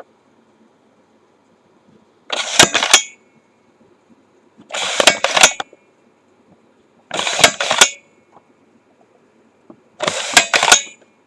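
View-Master viewer's lever pressed four times, about every two and a half seconds, each stroke a short mechanical click-clack as the reel advances to the next picture.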